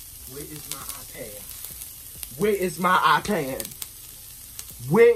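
A frozen Impossible plant-based patty and mixed vegetables sizzling steadily in vegetable oil on a hot skillet. A person's voice comes in over it, faintly early and loudly in the middle and at the end.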